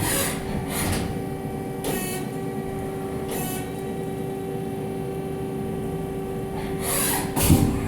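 Haas ST-20Y CNC lathe at work on an aluminium part: a steady machine hum with a few short, loud bursts of noise about a second in and again near the end.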